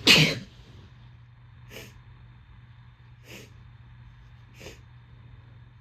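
A person sneezing harshly: one loud sneeze at the start, then three short, much fainter bursts about every second and a half, part of a rapid sneezing fit.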